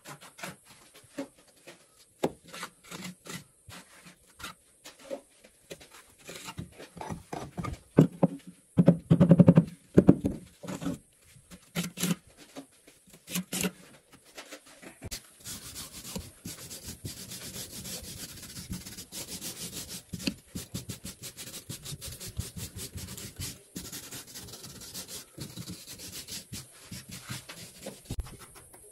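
Mason's trowel scraping and rubbing wet mortar into the joints of a brick wall: scattered scrapes and taps at first, a few louder thuds about nine seconds in, then steady, even scraping through the second half.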